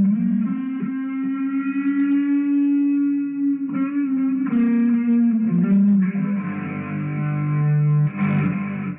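Background guitar music: held notes and chords, changing a few times, breaking off abruptly at the very end.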